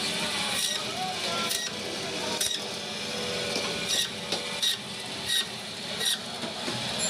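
Band saw for cutting fish running with a steady hum, with about seven sharp knocks spread through it, less than a second apart.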